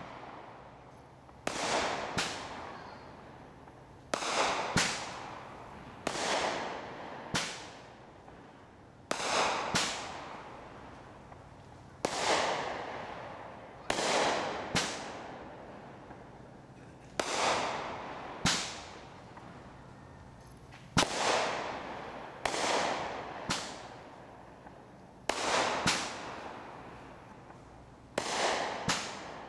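Consumer aerial firework shells going off in steady succession, a launch thump followed within a second by the burst bang overhead, about every two seconds, each bang trailing off in an echo.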